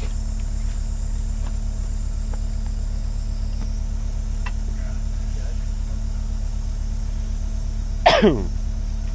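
Diesel engine idling steadily with a low, even pulse. Near the end a man gives one short vocal sound that falls in pitch.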